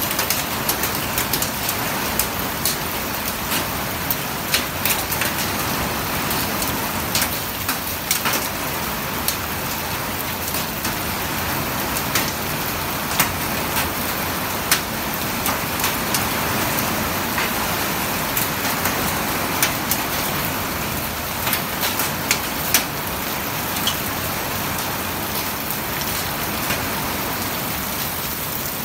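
Heavy rain pouring steadily, with frequent sharp taps of drops striking a surface close by.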